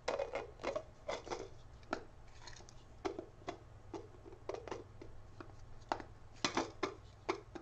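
3D-printed plastic pieces clicking and scraping against each other as a yellow gold-pieces insert is pressed and snapped into a black plastic pot. The clicks are short and irregular, with a quick cluster about six seconds in.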